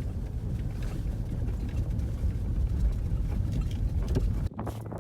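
Wind buffeting the camera microphone, a steady low rumble, cutting off abruptly near the end.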